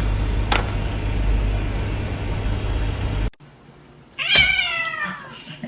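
A steady low rumble stops abruptly, and about a second later a cat gives one loud meow that falls in pitch.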